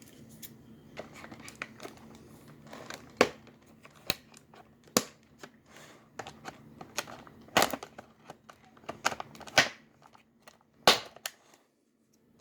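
Plastic and cardboard toy packaging being handled and pulled open: irregular crinkling and rustling broken by sharp snaps and clacks.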